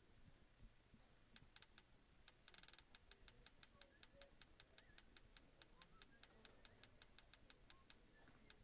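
A run of sharp clicks: a few irregular ones, then a quick flurry, then steady rapid clicking at several clicks a second that stops near the end, followed by one last click.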